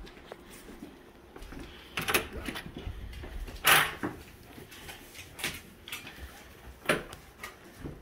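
Footsteps and a handful of short household knocks and clicks, spaced a second or two apart, the loudest about four seconds in.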